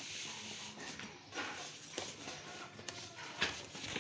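Cardboard box being handled and its flaps folded open, with light rubbing and a few short knocks and scrapes of cardboard.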